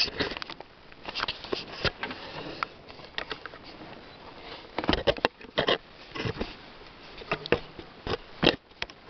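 Irregular clicks, knocks and rustling of a camera being handled and set in place, with a cluster of louder knocks from about five seconds in.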